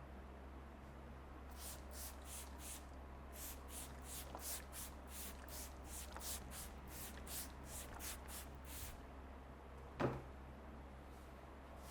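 Hands rubbing briskly over hair and scalp during a head massage, a run of short hissy strokes at about three a second, followed by one sharp knock about ten seconds in.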